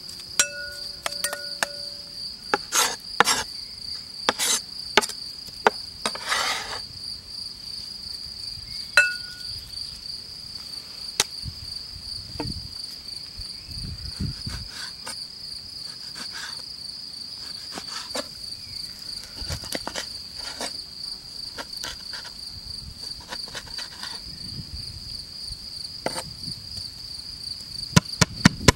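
Steady high-pitched chirring of insects in the grass. Over it come scattered knocks and taps of a cleaver, first in a bowl of minced meat, then dull thuds and a quick run of sharp chops on a wooden board near the end.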